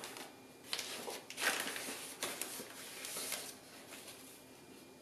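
Paper flour bag rustling and crinkling as whole wheat flour is scooped out of it with a spoon, in several short bursts that die away near the end.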